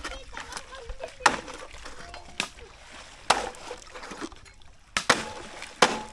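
Machete chopping into a bamboo pole lying in shallow water: five sharp, irregular strikes about a second apart, each with a short wet splash.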